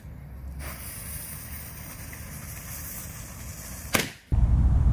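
A firework fuse sizzles with a steady high hiss for about three seconds. The rocket then launches with a sudden loud whoosh about four seconds in. A loud low rumble follows near the end.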